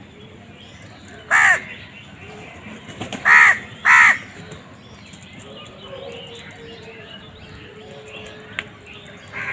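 A crow cawing: three short, harsh caws, one about a second and a half in and two in quick succession about two seconds later.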